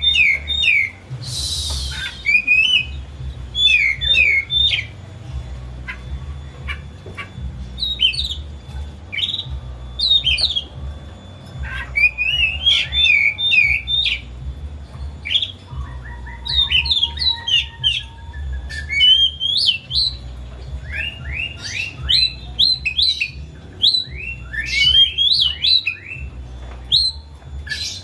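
Oriental magpie-robin in full, agitated song: fast phrases of sharp, sweeping whistled notes with brief gaps, and a short harsh rasp about a second and a half in. A steady low hum runs underneath.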